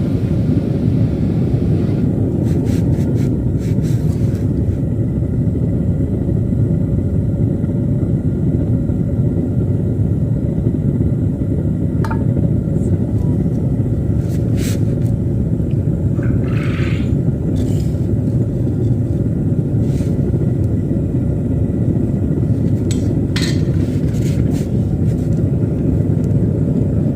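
Metal-melting furnace running with a loud, steady low roar, with a few light metallic clinks and scrapes over it.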